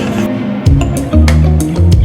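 Background music: a heavy bass line and drum hits come in suddenly about two-thirds of a second in.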